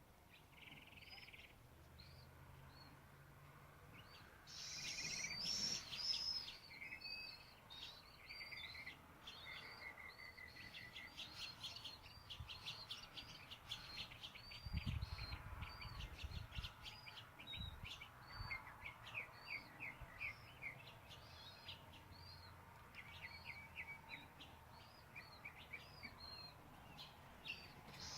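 Small birds chirping and calling, many short high notes repeated and overlapping, with a few low thumps about halfway through.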